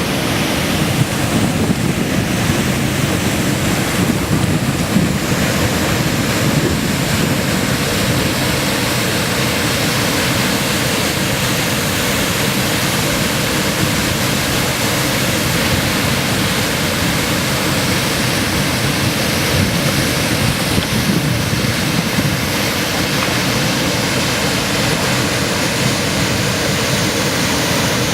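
Kivach waterfall on the Suna River: a steady, loud rush of falling water.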